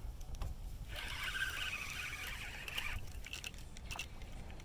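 Spinning fishing reel being cranked in a spell of a couple of seconds, fighting a fish just hooked. It starts about a second in and stops abruptly, with a few sharp clicks after it and wind rumbling on the microphone throughout.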